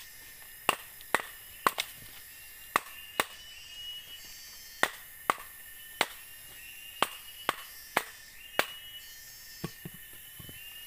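A machete, driven with a wooden stick, strikes a green bamboo pole to split it lengthwise: about fifteen sharp, irregular knocks, one or two a second. Behind them runs a steady high tone with short rising calls repeating every couple of seconds.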